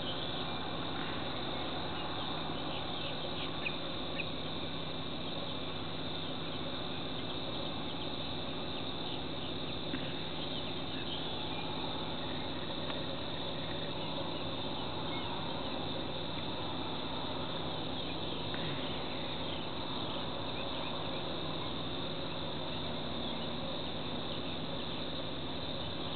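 Steady, high-pitched chorus of insects trilling in wetland grass, over a constant low hum, with a few faint ticks.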